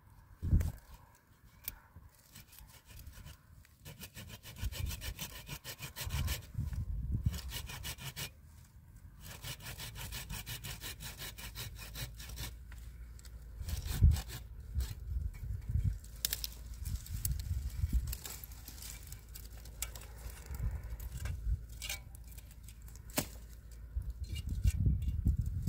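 Hand saw cutting through wood in repeated back-and-forth strokes, pausing and starting again, with a few sharp knocks of the wood, the loudest about halfway through.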